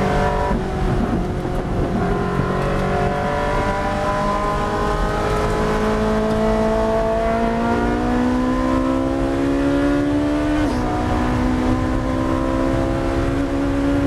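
Ferrari Challenge race car's V8 engine, heard from inside the cockpit, accelerating hard under full throttle in fourth gear with its pitch rising steadily. About ten and a half seconds in, a quick upshift into fifth drops the pitch, and it climbs again.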